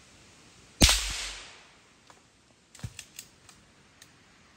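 A single gunshot fired at a squirrel up in a tree, a sharp loud crack that dies away over nearly a second. About two seconds later come a few light clicks and knocks.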